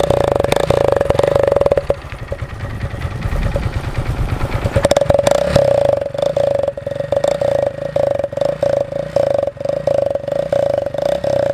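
Motorcycle engine running with a fast pulsing exhaust note, dropping back about two seconds in, then revved up to a peak and left pulsing unevenly.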